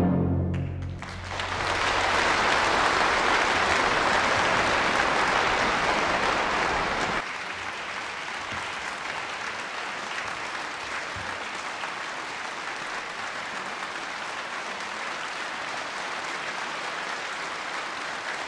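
A symphony orchestra's final chord dies away, then a concert-hall audience applauds steadily. The applause drops abruptly to a lower level about seven seconds in and goes on at that level.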